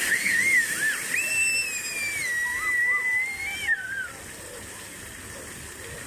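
Children squealing over the steady hiss of splashing fountain water. Short wavering squeals at the start, then about a second in one long high squeal that slowly falls in pitch and stops after two to three seconds.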